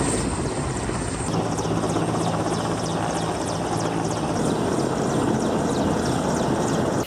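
Helicopter flying nearby: steady rotor and turbine noise. From about a second in, a low hum and a fast, even rotor beat come through.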